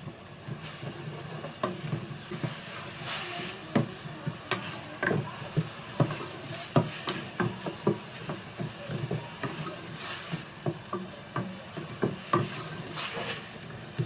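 Chopped onions and green chillies frying in hot oil in a pot, sizzling while a spoon stirs them, with repeated irregular scrapes and knocks of the spoon against the pot.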